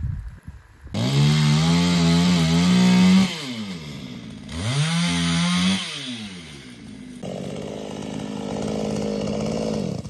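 Chainsaw engine revved up hard twice, each burst lasting one to two seconds with the pitch sliding down as it drops back. It then runs steadily at a lower level for the last few seconds.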